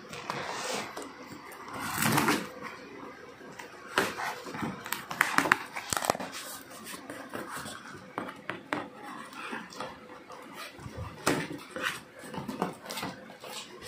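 Cardboard carton being opened by hand: flaps and taped cardboard scraping and rustling, with scattered knocks and sharp ticks.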